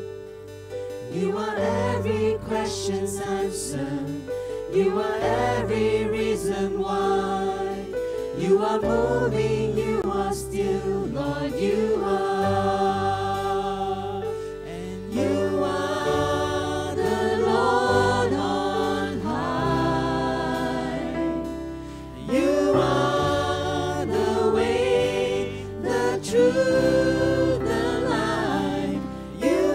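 Church worship team of several singers performing a contemporary worship song, backed by acoustic guitar and a band with a steady bass line.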